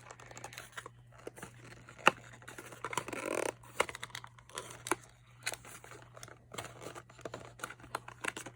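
Hands working at a small product's packaging: irregular rustling, crinkling and sharp clicks, with one loud click about two seconds in and a longer rustle a second later.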